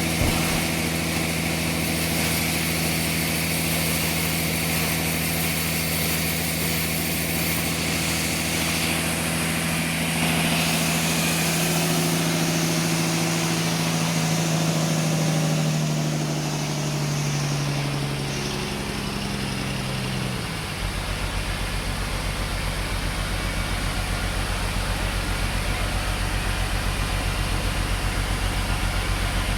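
Sawmill engine running with a high hiss of sawing in the first third, then slowing, its pitch falling over a few seconds past the middle, before it settles into a lower, steady, evenly pulsing idle.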